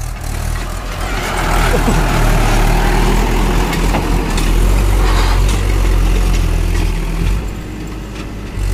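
Swaraj 843 XM tractor's diesel engine running steadily under load, pulling a trailer full of soil over soft dirt.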